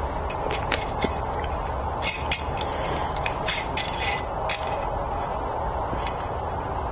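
A series of sharp clicks and clinks from the metal screw lid of a glass mason jar being gripped and twisted, loudest in the first half, over a steady low background hum.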